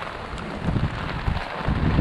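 Heavy wind-driven rain hissing steadily while gusts of wind rumble on the microphone, growing stronger about a second and a half in.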